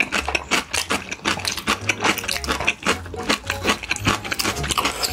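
Background music with a steady bass beat, about two beats a second, and quick clicking percussion.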